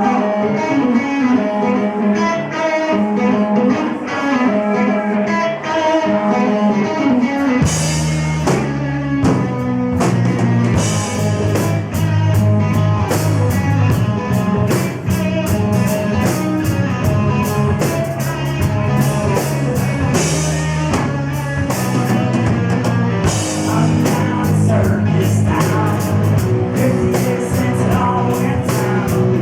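Live rock band playing an original song: a guitar line alone at first, then bass and drums come in about eight seconds in and the full band plays on.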